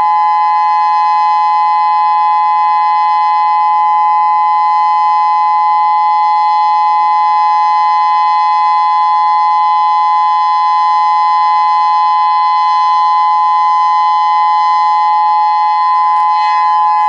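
Federal Signal Modulator 6024 electronic outdoor warning siren sounding a loud steady alert tone: two close pitches held level, without rising or falling.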